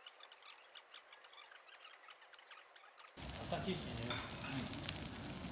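A cube of beef fat sizzling on a hot steel teppanyaki griddle as a spatula presses and rubs it around to grease the plate; the sizzle starts suddenly and loudly about three seconds in, after a stretch of faint small clicks.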